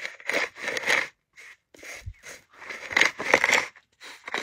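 A hand stone rubbed back and forth over dry sorghum grain spread on a leather hide, making repeated gritty scraping, crunching strokes.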